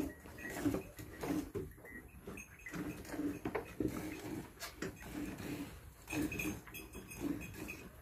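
A cow being milked by hand into a steel bucket already well filled with frothy milk: steady, rhythmic squirts of milk streaming into the foam, about two a second.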